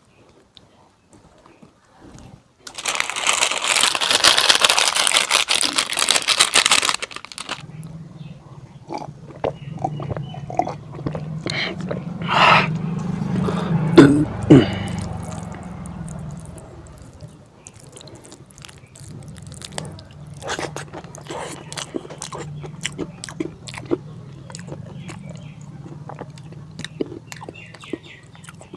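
Close-miked eating sounds of fatty pork curry with rice: chewing, biting and wet smacking with many small crunches and clicks. About three seconds in, a loud, dense noise lasts roughly four seconds before the chewing takes over.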